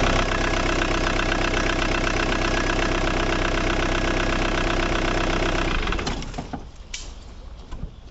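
Ford Mondeo Mk3 engine idling steadily, running again now that a burnt fuse has been replaced. About six seconds in the engine sound dies away, leaving a few light clicks and knocks.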